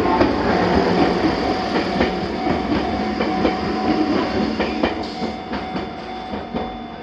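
Enoshima Electric Railway (Enoden) electric train passing over a level crossing, its wheels clacking over the rail joints as it moves away and fades. A steady tone sounds throughout.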